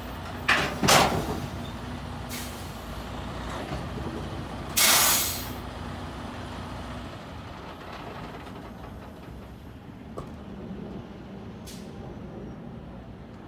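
Semi truck's air system hissing in short bursts, the loudest about five seconds in, over a low steady rumble.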